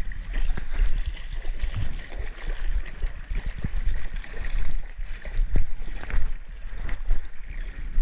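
Shallow creek water sloshing and splashing irregularly as someone wades through it, with many small splashes over a low rumble.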